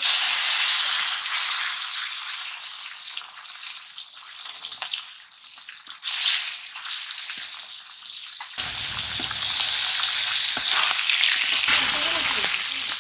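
Turmeric-coated snakehead fish pieces sizzling loudly in hot oil in a black iron kadai, turned with a metal spatula. The sizzle starts suddenly and flares up again about six and about nine seconds in.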